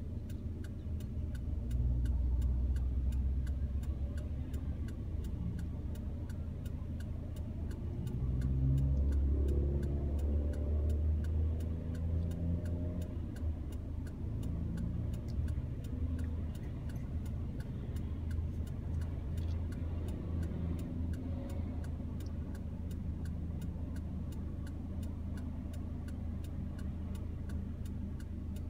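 A car's turn indicator clicking steadily inside the cabin as the car idles, over a low engine and traffic rumble that swells twice as other vehicles pass.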